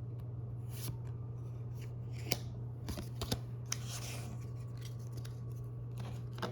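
Pokémon trading cards and booster-pack foil being handled: a few short, sharp clicks and soft rustles, over a steady low hum.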